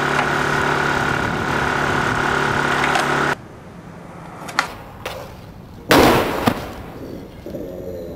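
A steady droning hum cuts off abruptly a little over three seconds in. A couple of sharp skateboard clacks follow, then a hard slam of a skateboard and rider hitting the pavement about six seconds in, with a second smack just after.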